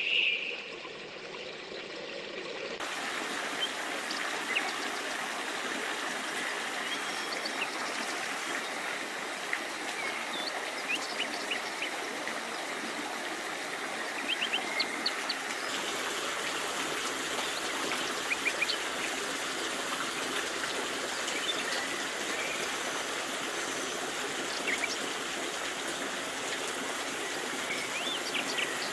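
Steady splash and trickle of water falling in thin streams from a mossy sandstone overhang and running down a small forest brook. Short bird chirps come in now and then.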